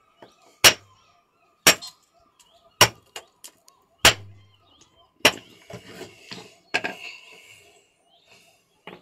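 Hammer striking a stone fossil nodule held under a shoe, about once a second: five sharp cracks, then a lighter one, after which the nodule lies split open.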